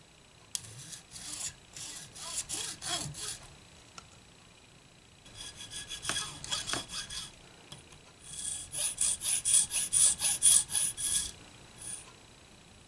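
Flat metal file rasping across a guitar nut blank clamped in a vise, in three bouts of quick back-and-forth strokes, the last bout the loudest at about four strokes a second. This is the rough shaping of a new nut.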